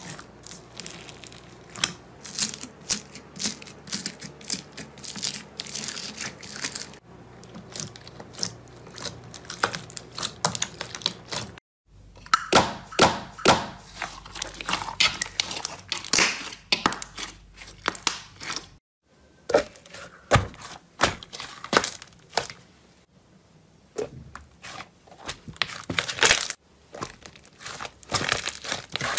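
Slime being squeezed, poked and pressed by hand: dense runs of crackly, crunchy pops and squelches. The sound changes abruptly a few times as one clip gives way to the next.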